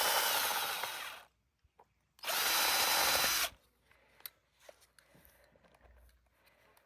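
Power drill run in two short bursts of about a second each, its motor whining steadily, as it drives a fastener to tighten a hose onto a 3-inch fitting; faint handling noises follow.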